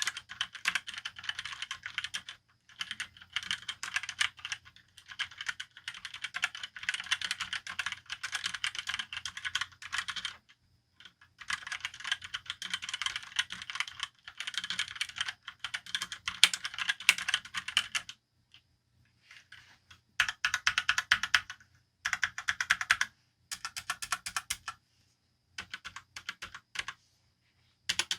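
Fast typing on a Motospeed GK82 tenkeyless mechanical keyboard with red linear switches. Rapid runs of keystrokes come in stretches of a few seconds, broken by brief pauses. The typing is quiet.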